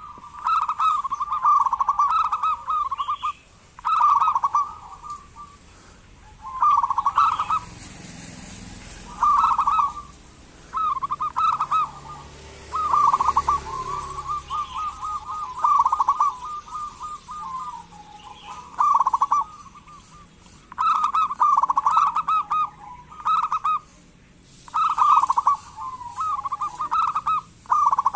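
Zebra dove (perkutut) calling in repeated short bursts of rapid rattling notes, one burst about every two seconds, typical of the local dove's kerot call.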